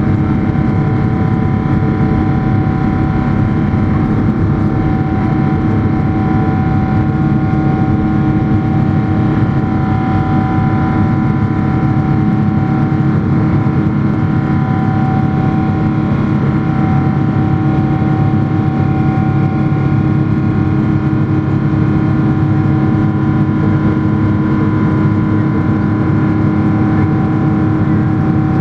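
Jet engine noise from inside the cabin of a Boeing 777-300ER: its GE90 engines running at a steady, unchanging thrust, a dense drone with a steady whine on top.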